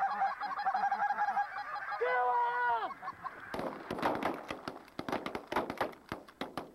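A flock of geese honking overhead in a dense chorus, with one long drawn-out call about two seconds in. From about three and a half seconds on, a rapid series of sharp cracks.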